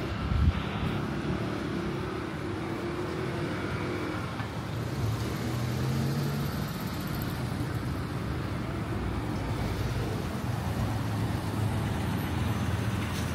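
Street traffic: a car engine running close by, over a steady hum of road noise, with a short knock about half a second in.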